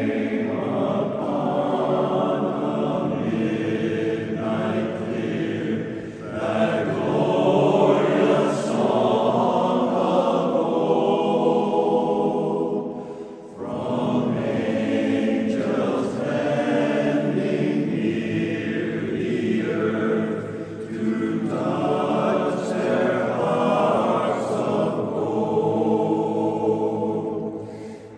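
Barbershop chorus singing a cappella in close harmony, in two long phrases with a short breath break midway.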